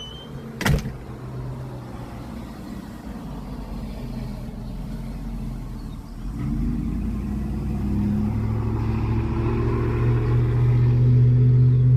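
A single sharp knock less than a second in, then a steady engine hum that grows louder through the second half.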